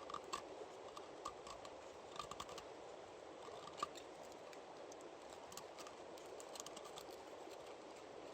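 Scattered light clicks and ticks, several in the first four seconds and a few more near the end, over a steady faint hiss.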